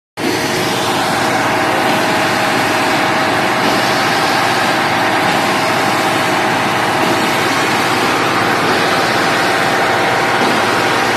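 Concrete mixer truck's diesel engine running steadily and loudly at close range, with the drum turning as it discharges. The sound cuts in abruptly right at the start.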